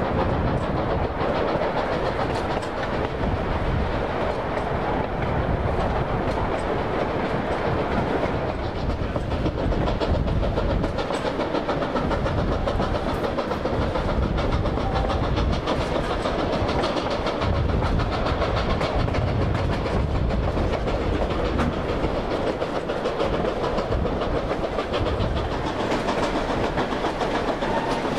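Durango & Silverton narrow-gauge train running along the track: a steady rumble of wheels on rail, with clicking over the rail joints.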